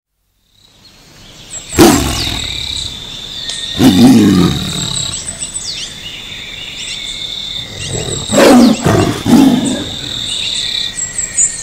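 Tiger roaring four times, two calls early and two close together later, over a steady chorus of chirping insects with scattered bird calls.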